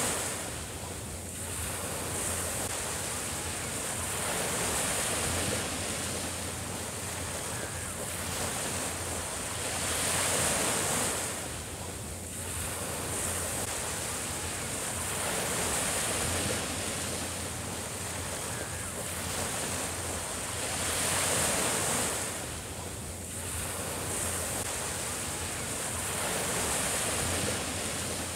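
Small sea waves breaking and washing up onto a sandy shore, the surf swelling and easing every few seconds.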